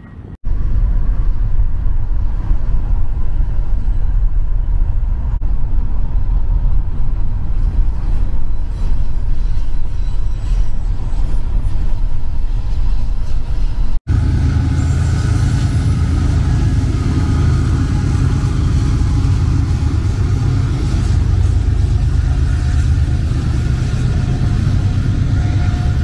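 Steady road noise of a car driving along the highway. About halfway through it breaks off abruptly and gives way to a long freight train of container and tank cars passing, a heavy steady rumble.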